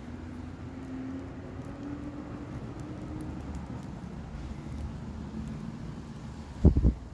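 Steady low rumble of distant road traffic, with a faint wavering hum, broken near the end by two loud, low thumps in quick succession.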